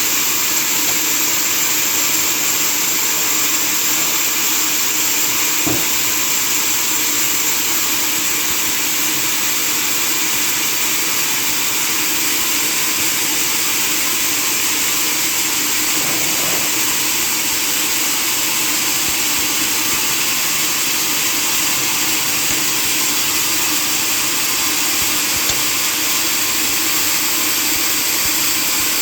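Sawmill machinery running steadily, a constant loud mechanical hiss and hum with no break.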